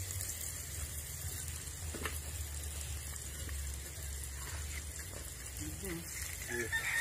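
Steady sizzle of food cooking in a metal pot over an open wood fire, with a low steady rumble underneath.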